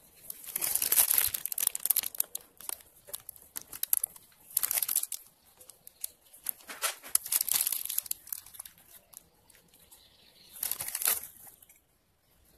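Plastic piping bag of whipped cream crinkling as it is squeezed to pipe cream, in four bursts with pauses between.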